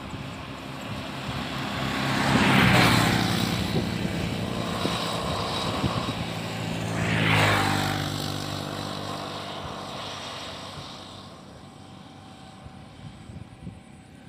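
A motor engine passing by: its hum swells to a loud peak about three seconds in and again about seven seconds in, drops in pitch, then slowly fades away.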